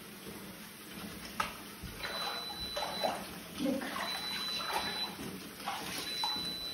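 Bathwater sloshing and splashing in a filled bathtub as a person steps in and moves her legs and hands through it, in irregular splashes that get busier after the first second or so.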